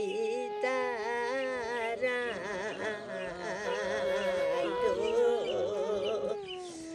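Women's voices singing a Limbu palam, the Kirati traditional sung song, in long held notes with wavering, ornamented turns, more than one voice sounding at once.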